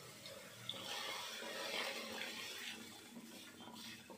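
Water poured from a steel bowl into a kadhai of roasted semolina and curd, the water stage of making upma. The pour picks up about a second in and tails off near the end.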